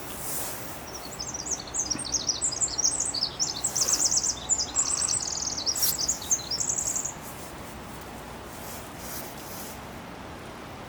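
A small songbird singing one long, rapid, high-pitched song of tumbling notes and trills, lasting about six seconds and stopping abruptly, over faint outdoor background noise.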